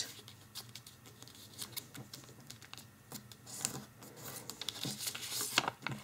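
A sheet of origami paper rustling and crinkling softly as it is folded and creased by hand, with small scattered ticks of fingers on the paper and a couple of louder rustles about three and a half seconds in and near the end.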